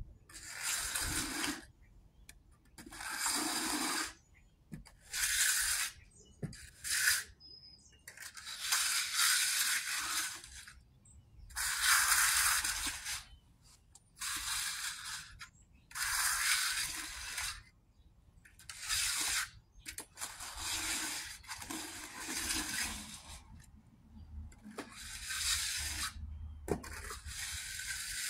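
Hand concrete-finishing tool scraped over wet, freshly poured concrete along the slab's edge, in a dozen or so separate strokes, each about a second long and roughly two seconds apart.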